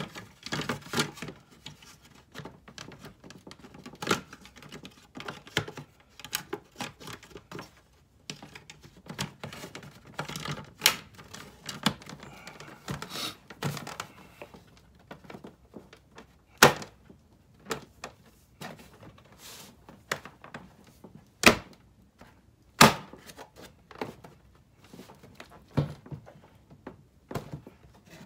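Plastic fog light bezel being pressed into a 2018 Subaru WRX's front bumper cover: irregular plastic clicks and knocks as its clips are worked into place, with a few sharper snaps in the second half.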